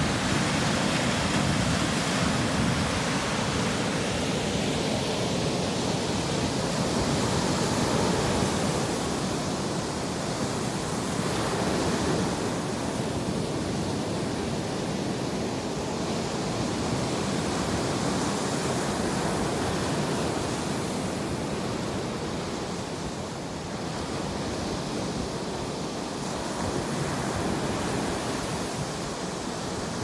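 Atlantic Ocean surf washing onto a sandy beach: a continuous rush of waves that slowly swells and eases.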